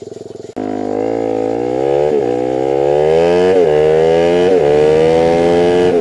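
Suzuki DR-Z400 supermoto engine idling, then, after an abrupt cut about half a second in, accelerating hard through the gears. The pitch climbs and drops back at each of three upshifts, about two, three and a half and four and a half seconds in, then holds steady at highway speed with wind rushing.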